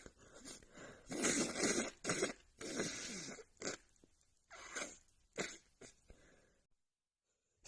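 A woman with a runny nose, in the middle of a sneezing fit, breathing noisily and sniffling: a few long breathy breaths in the first few seconds, then several short sharp sniffs.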